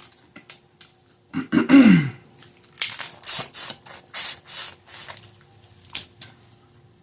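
Close-up wet eating sounds of crawfish and shrimp in butter sauce: a run of short sucking and slurping bursts over about two seconds, with a brief hum from the eater about one and a half seconds in and scattered small clicks.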